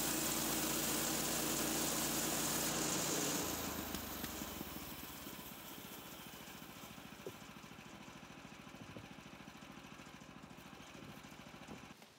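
Woodland Mills portable bandsaw mill's gas engine running under load as the band blade cuts through a log, with a high hiss from the blade in the wood. About three seconds in the cut ends and the engine drops to a quieter, steady idle.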